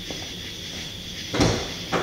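Car door being opened: a heavy clunk about a second and a half in, then a sharper click just before the end.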